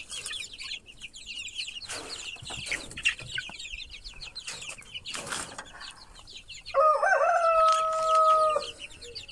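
A flock of young chickens peeping and cheeping continuously. About seven seconds in, a rooster crows once, a loud call held for nearly two seconds.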